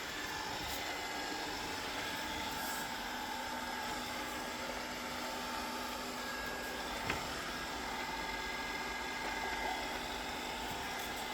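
Narwal Freo Z Ultra robot vacuum running: a steady whirring hum of its suction motor and brushes, with one sharp click about seven seconds in.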